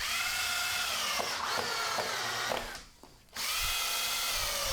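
Power drill driving 3.5-inch screws through a window frame, its motor whining in two runs. The first run stops about two and a half seconds in; the second starts again after a short pause, and its pitch sinks slowly.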